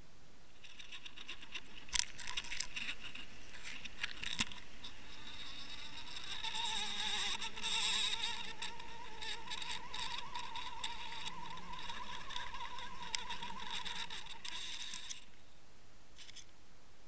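Steady buzzing whine with a wavering pitch, picked up underwater, with scattered sharp clicks, the loudest about two seconds and about four seconds in; it swells from about six seconds in and stops about two seconds before the end, leaving a faint hiss.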